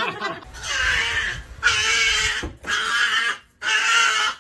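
A dog giving four hoarse, drawn-out barks, about one a second, each lasting nearly a second, an unusual bark more like a honk than a yap.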